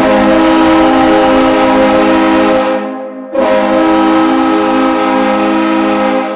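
New York Islanders goal horn blowing two long, loud blasts of about three seconds each, a steady chord of several tones, with a short break between them.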